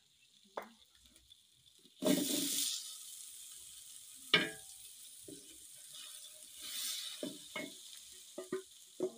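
Soya chunks and potatoes going into hot oil in a metal cooking pot: a sudden loud sizzle about two seconds in that settles to a steady sizzle, while a wooden spoon knocks and scrapes against the pot several times.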